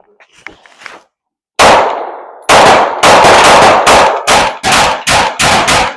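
Rapid semi-automatic gunfire: a single shot, a short pause, then a fast string of about a dozen shots at roughly three a second. These are the first shots with a newly installed Radian Ramjet.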